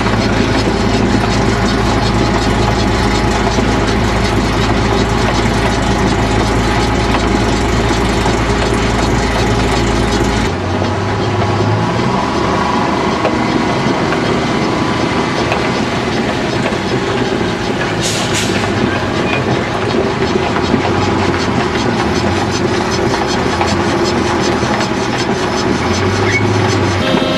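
Heavy farm vehicle engine running steadily. About ten seconds in, its deep low hum drops away abruptly while the broader mechanical noise carries on.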